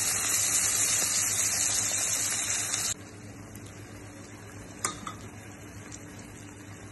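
Water poured into a hot wok of frying onions and tomatoes, sizzling loudly. The hiss stops abruptly about three seconds in, leaving a quieter steady sizzle of the simmering sauce. A single sharp clack comes near the end.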